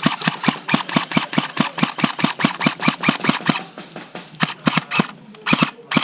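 Airsoft Mac-10 firing a steady stream of shots, about five or six a second, as suppressing fire. The stream stops a little after three and a half seconds, then two short bursts follow near the end.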